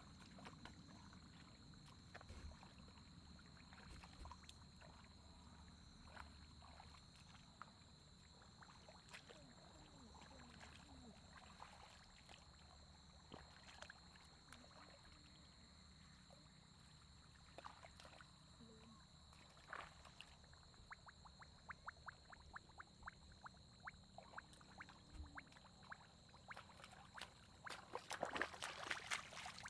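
Faint sloshing and small splashes of hands and bare feet in shallow, muddy paddy water while groping for fish. The splashes come sporadically and grow busier and louder near the end, over a faint steady high tone.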